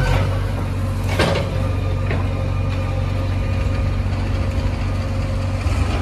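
JCB backhoe loader's diesel engine running steadily while the arm works, with a single sharp knock about a second in.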